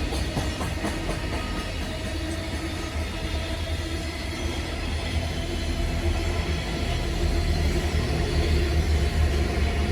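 JR Freight EF210 electric locomotive's cooling blowers running with a steady low hum that grows louder in the second half, as the freight train, halted by an emergency stop, gets ready to move off slowly.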